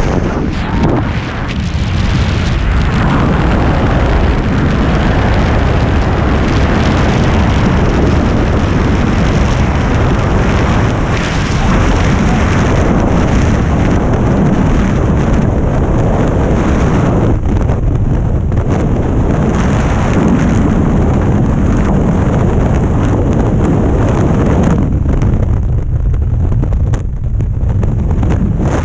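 Skydiving freefall wind on the camera's microphone: a loud, steady roar of rushing air.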